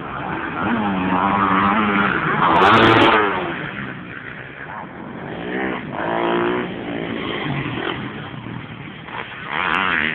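Motocross bike engines revving up and down as riders go round the dirt track. The pitch keeps rising and falling, loudest about three seconds in, with another hard rev near the end.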